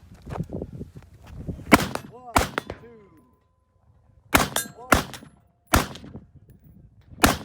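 Rifle fire on a match course: about six sharp shots spread over several seconds, several followed by the ringing tone of steel targets being hit.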